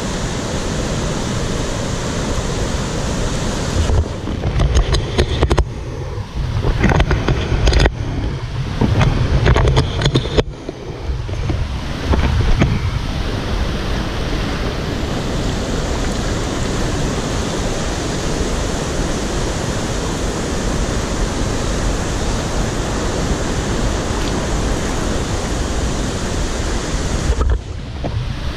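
Mountain river rapids rushing steadily, heard from right at the water's surface. From about four to ten seconds in, the rush turns muffled and heavy, with splashes and knocks of water against the camera, then goes back to the even roar of whitewater.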